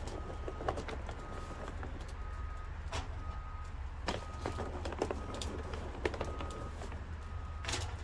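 Chunks of lump charcoal clicking and knocking as they are taken by hand from a paper bag and dropped into a charcoal grill's firebox. A short, steady high note repeats about once a second in the background.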